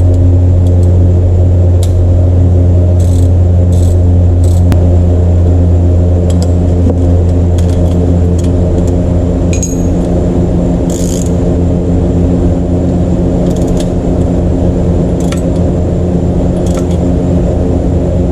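A steady, loud low mechanical hum runs throughout, with scattered light metallic clicks and ticks of hand tools working a spark plug down into the cylinder head.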